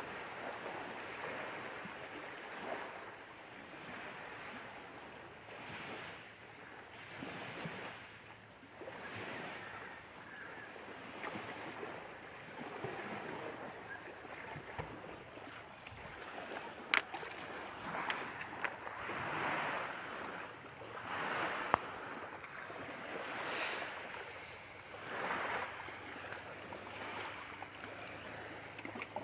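Waves washing on a shore: a rushing noise that swells and fades every couple of seconds, with two sharp clicks past the middle.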